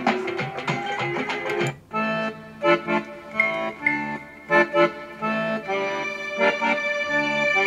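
Music played through a pair of Marvo Scorpion SG-265 stereo desktop speakers at about 30% volume and picked up by a microphone in the room. Just under two seconds in, a track of quick percussive notes stops, and a different piece with held chords starts.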